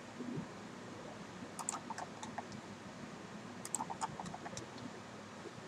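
Computer mouse and keyboard clicking in two quick runs of small clicks, about one and a half seconds in and again around four seconds in.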